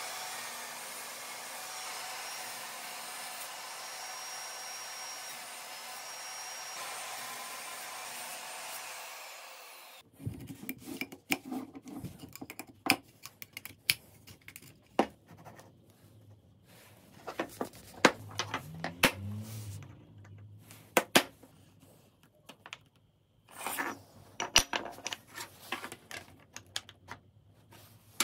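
A power tool runs steadily with a thin high whine for about ten seconds, then stops abruptly. After that come scattered clicks, taps and knocks of hand work with small tools on a walnut block and an aluminium extrusion.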